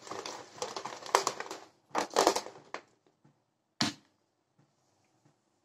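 Plastic shaker bottle shaken hard, its contents rattling and sloshing for under three seconds, then one sharp click as the flip-top lid is snapped open, followed by a few faint clicks.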